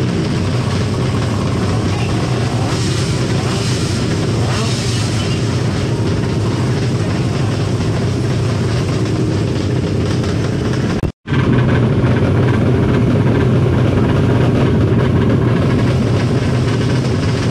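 A drag-racing motorcycle engine built from a Yamaha NMAX bored out to 300 cc, running loud and steady. The sound cuts out completely for a split second about eleven seconds in, then comes back just as loud.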